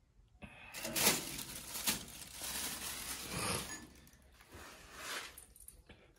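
Plastic bags crinkling and rustling as someone moves on and handles them, in several louder swells.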